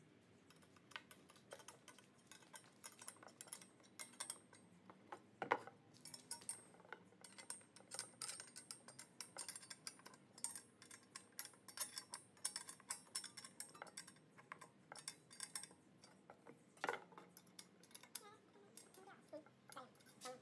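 Small metal clicks and clinks of steel scroll legs, bolts and nuts being handled and fitted against a square steel tube post, with two louder knocks, about five and seventeen seconds in.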